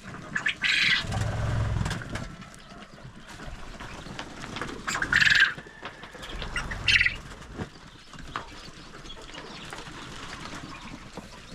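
Chickens squawking and flapping their wings in three short bursts, with quieter bird calls between.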